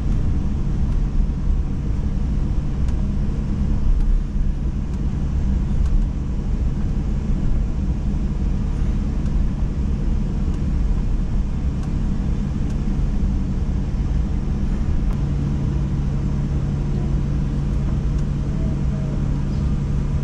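Airliner cabin noise while taxiing after landing: a steady low rumble with a constant hum that grows a little stronger in the second half.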